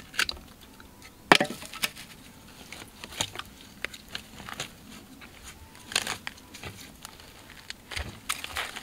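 Dry twigs and leaf litter snapping and crunching as a person scrambles over rocks through dry brush: irregular sharp cracks a second or two apart, the loudest about a second in.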